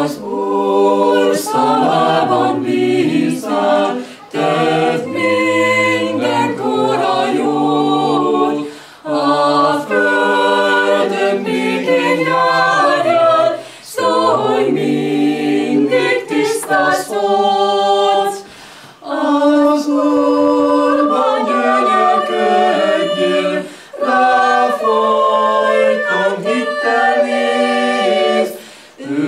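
A small mixed vocal group of men's and women's voices singing a cappella in harmony. The singing comes in phrases of about four to five seconds, with brief breaks between them.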